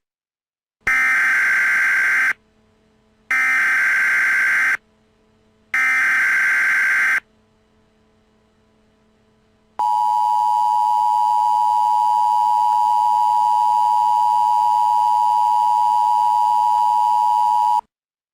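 Emergency Alert System opening: three short bursts of the buzzing digital SAME header, each about a second and a half long, then the steady two-tone EAS attention signal held for about eight seconds before it cuts off suddenly. This sequence marks the start of an emergency alert broadcast.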